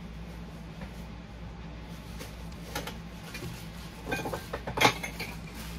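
Light metallic clinks and knocks of Funko Soda tins being handled and set down. Scattered taps begin about two seconds in, bunch together near the end, and the loudest comes a little before the end.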